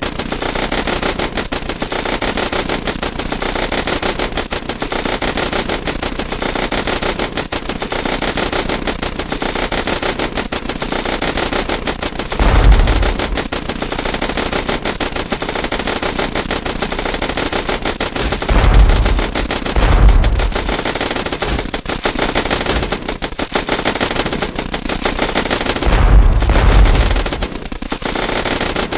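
Continuous rapid automatic gunfire from AK-type rifles, animation sound effects. Several deep booms rise over the shooting: one a little before the middle, two close together past the middle, and a longer one near the end.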